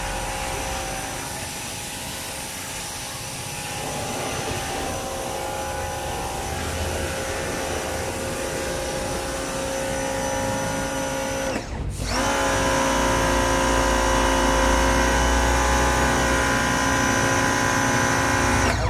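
Compact electric pressure washer running, a steady motor whine over the hiss of its wide fan spray hitting a car tyre. About halfway through, the sound breaks off for an instant and comes back louder and fuller.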